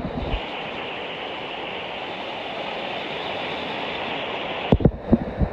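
Steady rush of water from a waterfall and stream. A few dull low thumps come in near the end.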